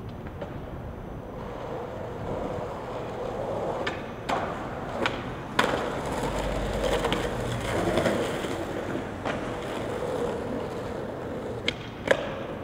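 Skateboard wheels rolling over street pavement, with several sharp clacks from the board being popped and landing.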